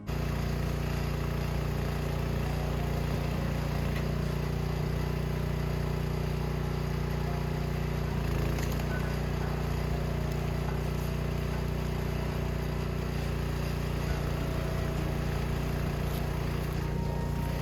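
An engine running steadily at a constant speed, with a low, even drone.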